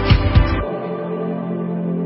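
Background music: a track with a steady drum beat whose drums stop about half a second in, leaving sustained held chords.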